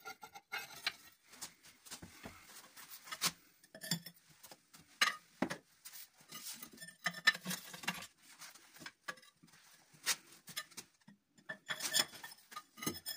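Metal tubes being handled and fitted together: scattered light clinks, taps and scrapes as the tube halves slide into one another and into holes in the wall.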